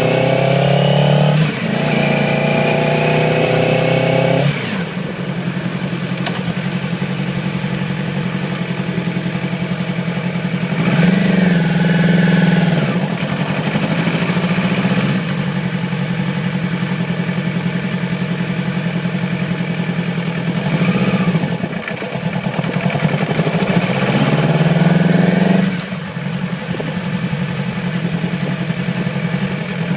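2008 Yamaha YZF-R6's inline-four engine held at raised revs for about four seconds, then dropping to idle and blipped up three times, running with a misfire from a failing ignition coil on one cylinder.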